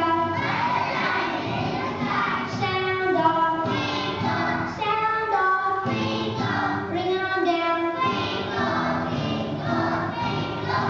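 A group of kindergarten children singing a song together as a choir, with the notes changing every second or so.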